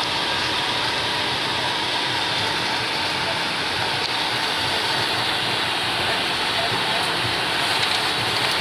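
Steady, even rushing noise inside the cockpit of a Bombardier Global 6000 taxiing, made by its Rolls-Royce BR710 turbofans at idle and the cockpit air supply, with a faint steady whine underneath.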